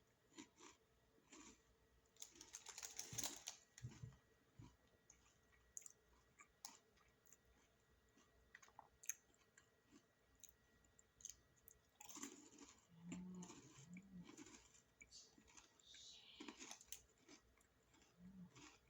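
A person eating a snack, chewing and crunching softly with scattered small clicks. There are louder crackly bursts about three seconds in and again around twelve to fourteen seconds in.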